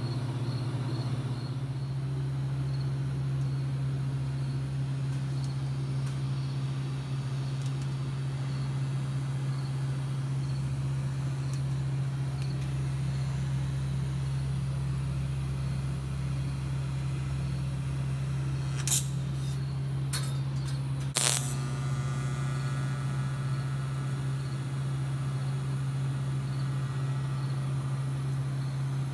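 Electric arc welding on a car's tube-frame bars: a steady, even buzzing hum from the arc and welder, with two short sharp clicks about two-thirds of the way through.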